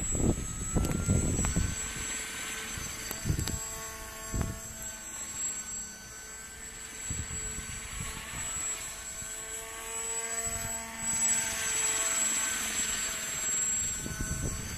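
Model pusher autogyro's propeller droning in flight, its pitch and loudness drifting up and down as it flies about. Gusts of wind thump on the microphone in the first few seconds.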